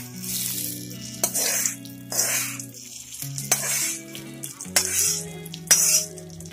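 Hot tempering oil with mustard seeds, curry leaves and green chillies sizzling in repeated bursts as it is poured and scraped from a kadai onto grated coconut chutney, with a few sharp metal clinks of pan and spoon against the bowl.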